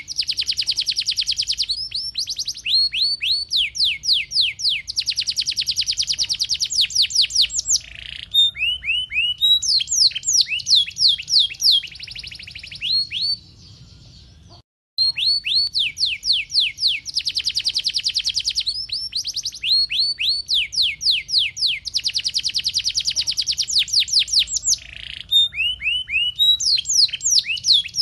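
Domestic canary singing a long, loud, high-pitched song of fast rolling trills and quick downward-sweeping notes. The song breaks off briefly about halfway through, then starts again with the same run of phrases.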